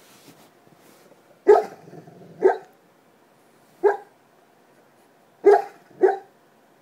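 A black Labrador barking in its sleep: five short barks, two about a second apart, then one on its own, then two close together near the end.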